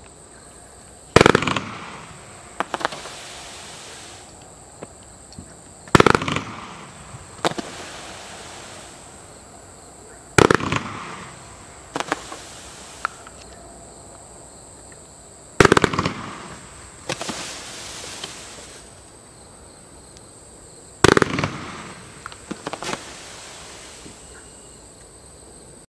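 Boom Wow 'Feast of Fishes' 500 gram fireworks cake firing: five loud reports about five seconds apart, each followed by several smaller pops.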